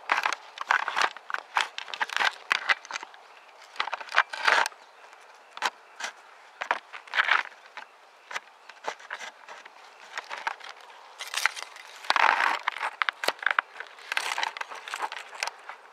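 Close rustling and crackling of dry twigs and brush, in irregular bursts of sharp snaps and longer rustles, loudest a little past the middle.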